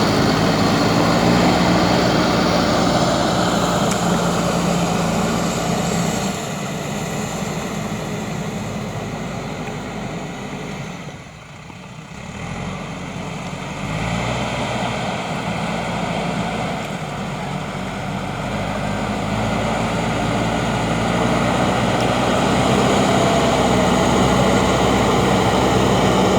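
Backhoe loader's diesel engine running under work, with a steady droning tone. It drops in level around the middle for a few seconds, then comes back up.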